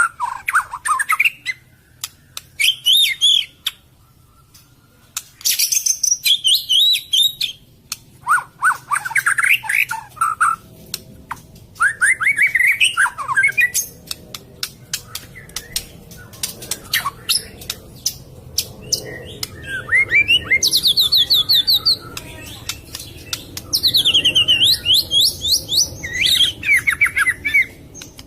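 White-rumped shama (murai batu) singing: a string of loud, varied phrases of rapid repeated notes, with gaps between them and sharp clicks scattered throughout.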